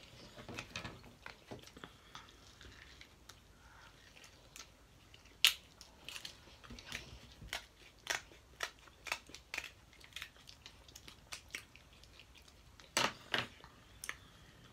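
Close-up eating sounds: chewing, with a run of short sharp cracks and snaps as cooked seafood shells are peeled by hand. The loudest crack comes about five and a half seconds in, and a pair comes near the end.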